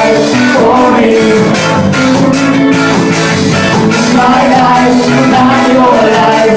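Live ska-rock band playing loud with drum kit and electric guitar.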